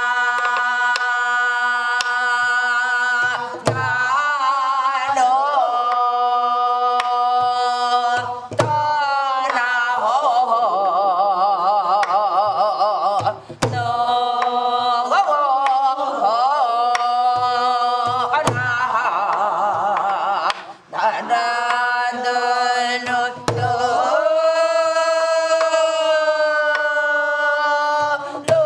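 Korean gueum, a vocal scat on instrument-imitating syllables, sung to a gutgeori rhythm in long held, wavering notes with sliding pitch. Low strokes on a buk barrel drum mark the rhythm beneath the voice.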